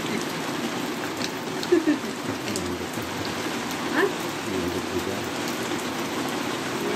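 Steady rain falling on a paved courtyard and shrubs: an even hiss with scattered individual drops ticking, and a couple of brief louder splashes about two and four seconds in.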